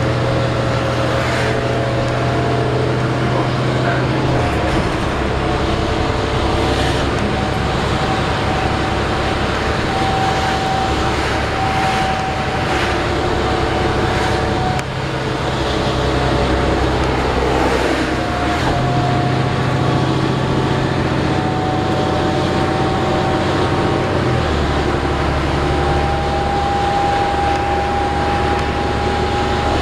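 Inside a 2008 New Flyer D40LF diesel transit bus under way: the engine runs steadily with a thin whine that slowly rises, and the low engine note steps up and down several times.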